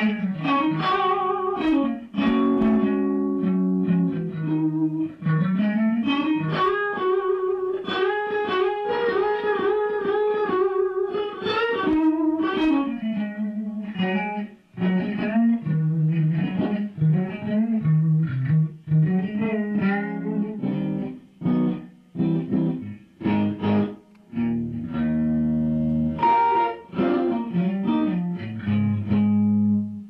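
Stratocaster-style electric guitar played solo: single-note lines with a slide up in pitch early on, wavering string bends, and a few held low notes toward the end, broken by short pauses in the second half.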